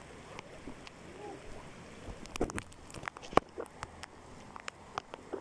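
Wading through shin-deep floodwater: water sloshing and splashing around the legs with each step, over a steady hiss. A burst of sharper splashes comes around the middle.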